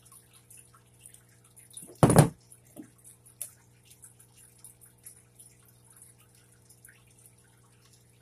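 A metal multitool set down on a tabletop with a single loud knock about two seconds in, followed by a lighter knock and a click, and faint scattered ticks of small tackle being handled over a steady low hum.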